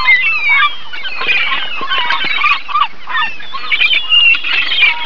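A large flock of gulls calling all at once, many short cries overlapping in a continuous chorus.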